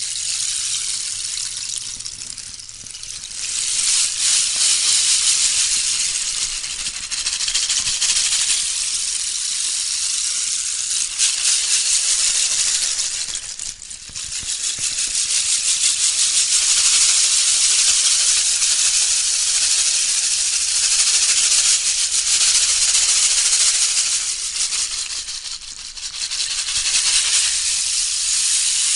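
A dense, high rushing noise with a fine rattling grain, swelling and fading in long waves, dipping briefly about 3, 14 and 26 seconds in.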